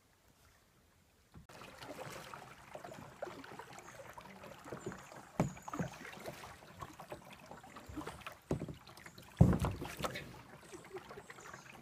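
Kayak being paddled on a slow river, with paddle dips, water splashing and scattered knocks against the plastic hull, and one loud thump about nine and a half seconds in as the kayak works under a fallen log. The first second and a half is near silence.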